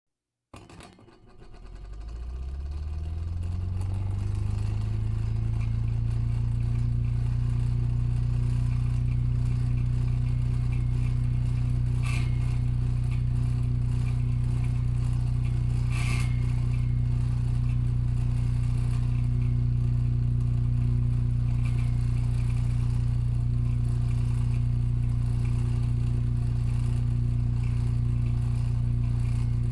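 Vintage Aircraft brand wall fan's twin-coil AC induction motor switched on from silence, spinning up over about five seconds with a rising pitch, then running at speed with a steady low hum and whir from the motor and blades. Two brief clicks sound partway through.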